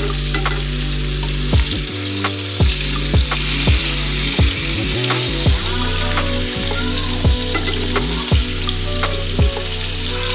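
Rohu fish steaks frying in hot oil in a pan, a steady sizzle, with sharp clicks about every half second.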